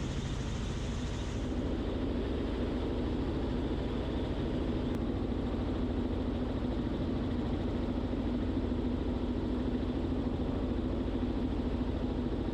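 Robinson R44 helicopter engine and rotors droning steadily, heard inside the cabin, with a low hum that grows slightly louder about a second and a half in. The collective has just been lowered to steepen a shallow descent.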